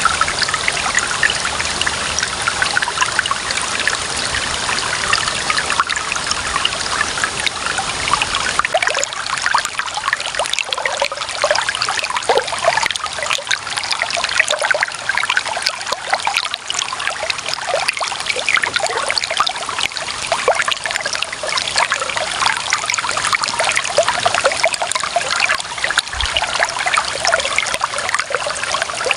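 Clear running water trickling and splashing steadily, with many small splashes. A low rumble underneath drops away about nine seconds in.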